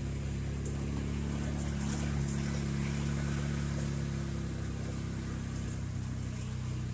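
Polaris side-by-side UTV engine running steadily as it drives along a dirt track, a constant low hum.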